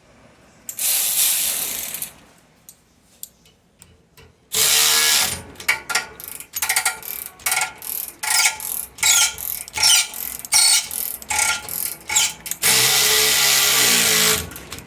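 Ratchet wrench turning a torch-heated, rusted exhaust flange bolt loose. There is a burst about a second in and another near four and a half seconds, then a run of short ratcheting bursts, then a steady run of about two seconds near the end.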